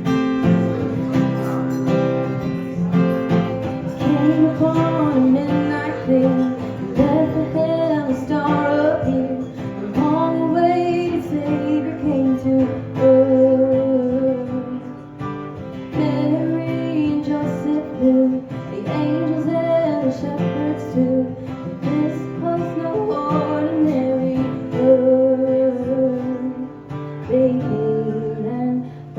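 Acoustic guitar playing the instrumental introduction of a song, with strummed chords under a melody line.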